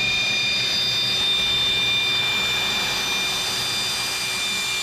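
Pneumatic air drill running at a steady speed, drilling a hole in a motorcycle frame: a high whine with several steady high tones over the hiss of its exhaust air.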